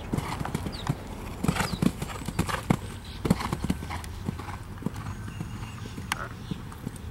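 Horse's hoofbeats on a sand arena at the canter around the jumps: a run of irregular dull hoof strikes, loudest between about one and a half and three and a half seconds in.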